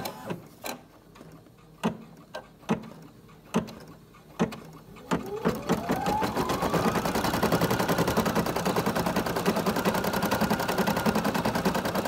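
Brother PE800 embroidery machine starting a design. A few separate clicks come about once a second, then about five seconds in the motor whine rises in pitch and settles into fast, steady stitching.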